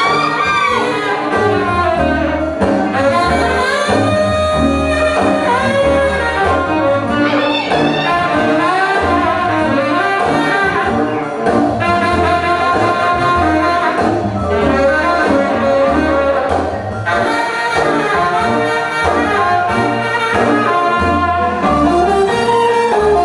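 Loud music with a brass-like melody line over a steady bass beat.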